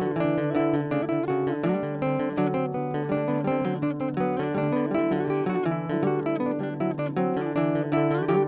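Background music: an acoustic guitar playing a continuous run of plucked and strummed notes.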